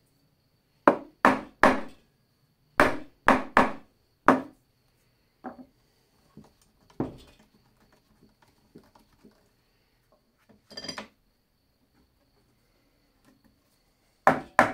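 Small hammer tapping a freshly edge-glued wooden panel: sharp knocks in quick runs of three and then four, followed by a few softer knocks. A short scraping rattle about eleven seconds in as a metal bar clamp is set across the panel.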